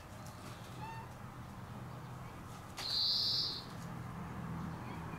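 A cat's short, high, chirping call about a second in. About three seconds in comes a louder, harsh, hissing buzz lasting under a second.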